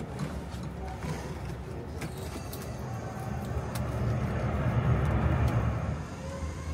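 A motor's low rumble, swelling for a couple of seconds past the middle, while a line hauls a marine engine up out of the hull. Scattered clicks and knocks are heard over it.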